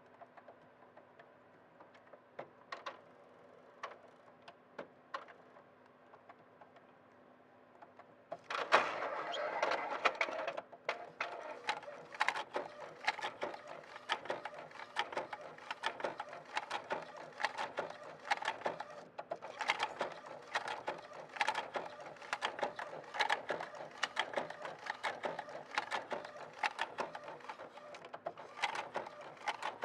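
Epson L800 inkjet printer giving a few separate clicks, then starting to print about nine seconds in with a fast, continuous knocking clatter. This knocking during printing is the fault the owner is showing.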